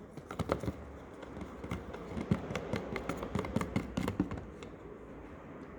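A utensil stirring glue mixed with food colouring and Tenys Pé activator in a container, in quick irregular clicks and taps against the sides, easing off near the end.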